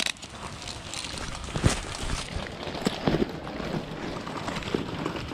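Wind rushing on the microphone, with a few sharp clicks or knocks, the loudest about a second and a half in.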